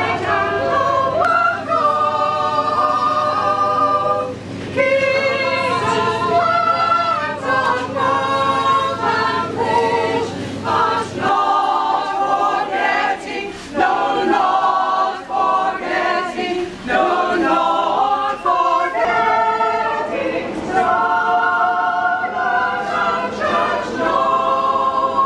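A group of mostly women singing together as an unaccompanied choir. A steady low hum runs under the singing for roughly the first eleven seconds and stops suddenly.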